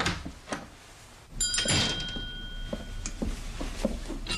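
Two light knocks, then a door thuds open about a second and a half in and a small bell rings out with it, fading over about a second and a half; the bell starts ringing again near the end.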